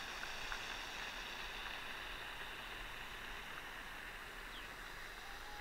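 Quiet outdoor park ambience: a steady soft hiss, with a single faint bird chirp near the end.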